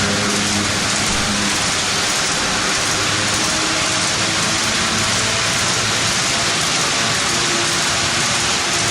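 HO-scale model train running on the layout track: a steady hiss with a faint low hum that shifts slightly in pitch.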